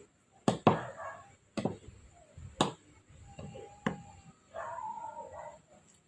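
Five or so sharp taps and knocks, spaced about a second apart, with short soft voice sounds between them.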